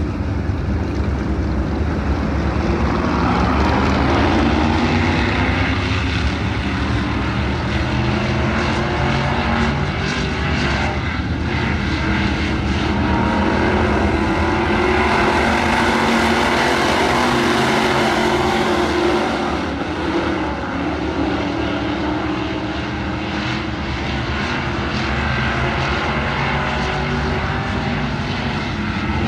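A pack of dirt-track Midwest Modified race cars racing, their V8 engines running loud and steady. The pitch rises and falls as the cars accelerate down the straights and back off into the turns.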